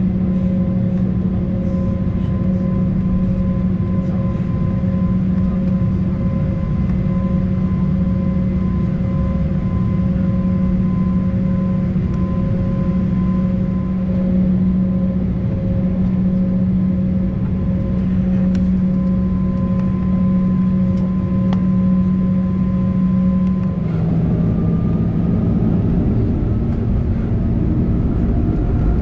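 Inside the cabin of an Embraer E195 taxiing, its GE CF34 turbofans give a steady hum and whine over the rush of cabin air. About 24 seconds in, the hum drops in pitch and a new whine begins, slowly rising.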